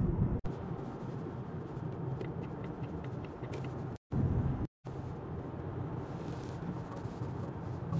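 Steady road and tyre noise inside a moving car's cabin at motorway speed, mostly low rumble. It cuts out briefly a few times where the recording is edited.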